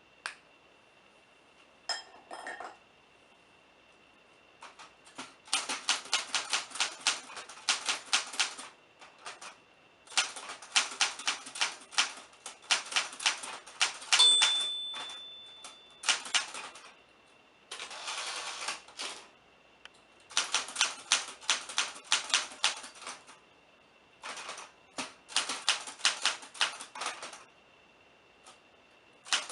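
Typewriter keys typing in quick runs of clacks, broken by pauses of a second or two. About halfway through, the margin bell dings once and rings out, warning that the line is nearly at its end.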